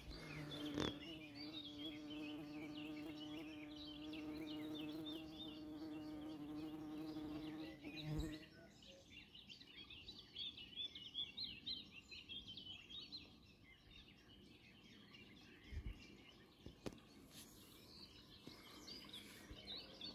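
A flying insect buzzing steadily close by for about eight seconds, then stopping suddenly, while small birds chirp throughout.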